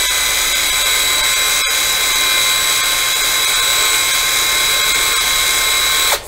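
DeWalt 20V cordless drill running steadily at speed, spinning a drill bit wrapped in 600-grit wet/dry paper inside a brake master cylinder bore to polish it to a smooth finish for new seals. It is a steady whine that cuts off right at the end.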